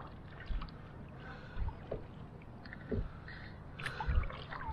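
A double-bladed kayak paddle dipping into shallow lake water, with small splashes about once a second and water dripping off the blades.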